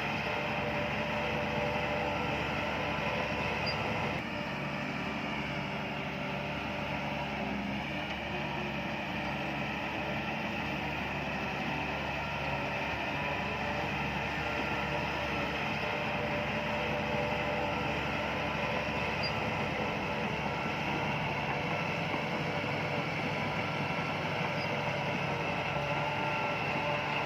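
Bulldozer's diesel engine running steadily, a continuous heavy machine sound with a slight drop in level about four seconds in.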